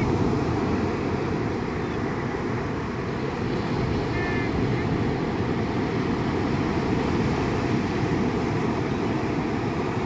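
Ocean surf washing up and draining back over a sand beach, a steady rush with wind rumbling on the microphone.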